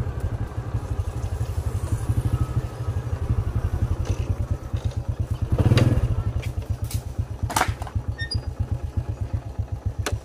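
Small motorcycle engine running at low speed, a steady rapid low pulsing. A louder thump comes about six seconds in, and a few sharp clicks follow later.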